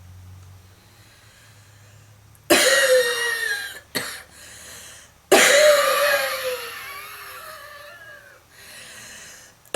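A smoker's heavy coughing fit. After a quiet stretch, a hard cough bursts out about two and a half seconds in, then a short single cough, then a second long cough that trails off over a couple of seconds. A noisy in-breath follows, and another cough starts right at the end.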